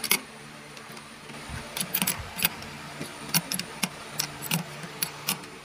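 Irregular metallic clicks and clinks of an adjustable wrench turning and tightening nuts on a jacuzzi blower motor's housing, with a faint steady low hum underneath.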